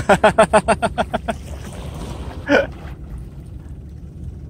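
Steady wind and sea noise on the microphone. It opens with a quick run of about ten short pulses, and one brief vocal sound comes a little past halfway.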